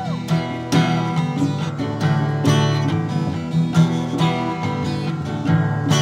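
Acoustic guitar strummed in a steady rhythm, playing an instrumental passage of a song.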